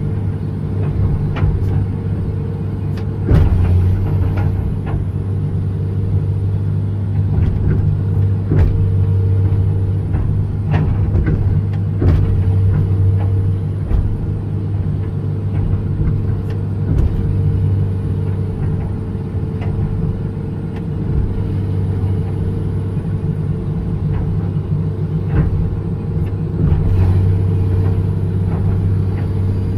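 John Deere 200LC (Hitachi EX200) excavator's diesel engine running steadily under load as the hydraulics work the boom and bucket, heard from the cab. Scattered knocks and clanks as the bucket works in the mud.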